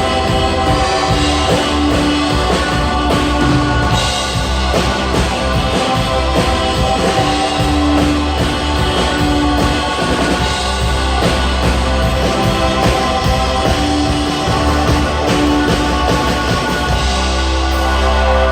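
Worship band music with electric guitar, held chords and a steady bass line.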